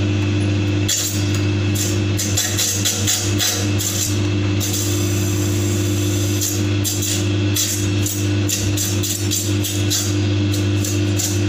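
Electric chicken cutting machine running, its motor humming steadily under repeated sharp, irregular chopping clatter as chicken pieces are fed to the stainless-steel circular blade.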